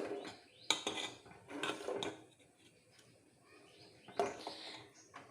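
A spoon clinking and scraping against a cooking pot of khichdi as it is stirred: several knocks in the first two seconds, a quiet spell, then another scrape about four seconds in.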